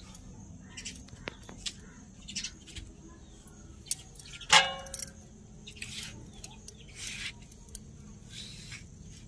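Irregular scraping and crisp cutting clicks of raw pumpkin being sliced against an upright floor-mounted blade. About four and a half seconds in there is one louder sharp knock with a short ring.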